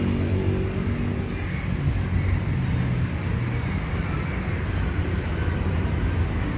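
Low, steady rumble of a motor vehicle engine, its pitched hum fading over the first second or two.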